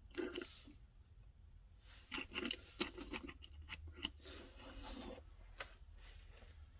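Hands handling toy-car packaging: cardboard and plastic blister cards rubbing and scraping, with a few light clicks.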